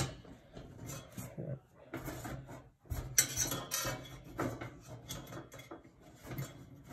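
Small metal parts clinking and rattling as a replacement gas-cooktop igniter is handled and pressed onto its burner base in the sheet-metal cooktop pan, with a louder clatter about three seconds in.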